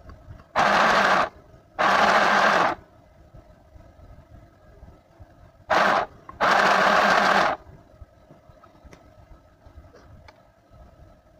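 Mini electric sewing machine stitching in four short runs, each a second or less, starting and stopping abruptly as the pedal is pressed and let go, with faint fabric handling in the pauses.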